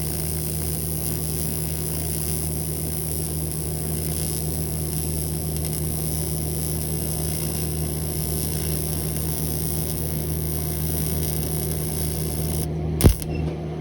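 TIG welder arc on aluminium giving a steady electrical buzz with a hiss over it. Near the end the hiss drops out and a single sharp click follows.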